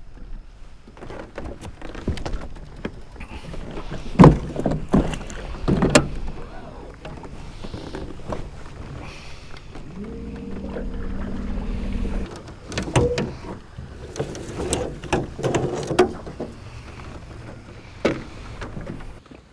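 Small aluminum fishing boat on the water: a low rumble with several sharp knocks and bangs on the metal hull, and a brief steady hum about halfway through.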